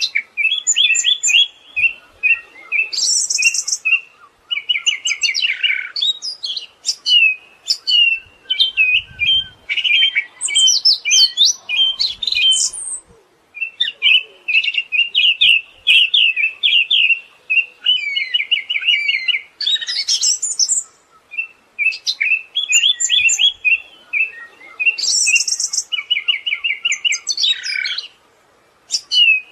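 Siberian thrush singing a long, varied song of rapid chattering trills and sharp high notes, broken by short pauses between phrases.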